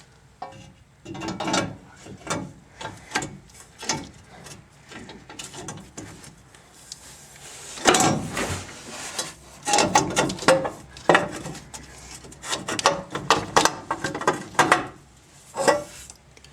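Irregular knocks, clunks and scraping of an exhaust header being worked into place in a truck's engine bay, metal hitting and rubbing against metal. The busiest clatter comes about halfway through and again toward the end.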